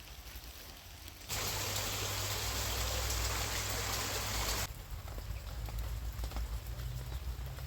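Rain falling on a garden. About a second in, a much louder, steady hiss of heavier rain starts abruptly and stops just as abruptly about halfway through, leaving lighter rain with scattered drips.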